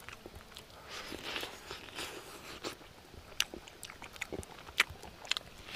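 A person eating: chewing and biting, with several sharp clicks in the second half.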